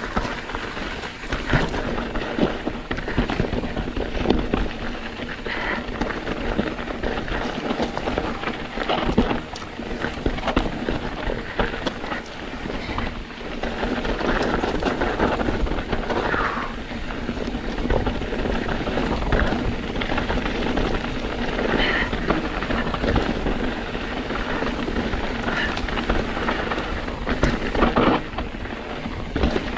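Mountain bike riding over a rocky dirt trail: tyres rolling and crunching on stones while the bike rattles and knocks continuously over the bumps.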